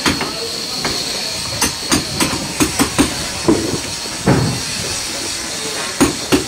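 Hammering: sharp blows in short quick runs with pauses between, the longest pause in the second half, over a thin steady high whine.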